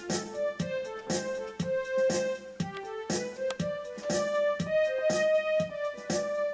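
Background music: a keyboard playing a melody of quick, evenly paced notes, about four or five a second.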